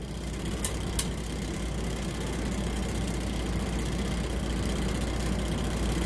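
Steady low background hum like a running motor, with two light clicks about a second in.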